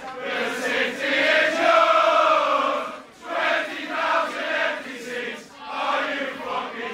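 A crowd of Manchester United football fans singing a chant together in many men's voices. It comes in sung phrases with brief breaks between lines.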